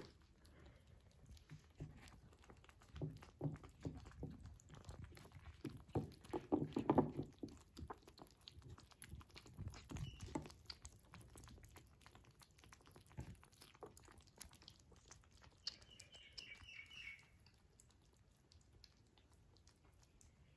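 Kittens eating wet food from a plate: faint wet chewing, licking and smacking with many small clicks, louder for a moment about seven seconds in. A short run of high chirps comes about sixteen seconds in.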